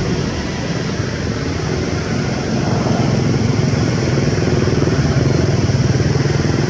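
An engine running steadily, with a low rumble that grows a little louder a couple of seconds in.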